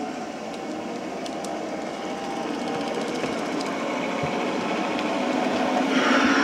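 G-scale model diesel locomotive and freight cars running along garden-railway track, a steady motor whir and wheel-on-rail rumble that grows louder as the train approaches and passes close near the end.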